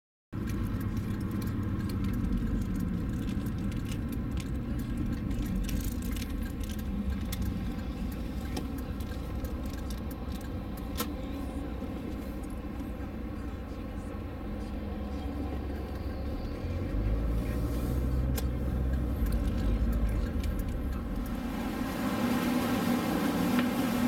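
Steady low road and engine rumble heard inside a moving car's cabin, with small light rattles. Near the end it gives way to a brighter, hissier background.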